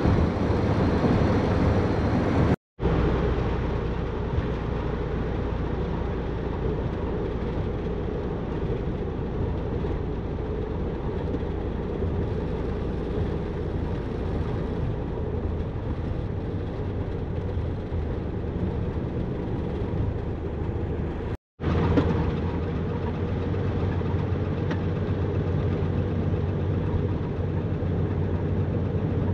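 Steady engine and road noise inside a camper van's cab while driving. The sound drops out for a moment twice, once near the start and again about two-thirds of the way through.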